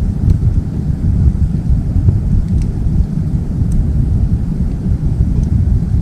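Wood fire burning in a small folding wood stove: a few sharp crackles and pops from the burning wood over a loud, steady low rumble.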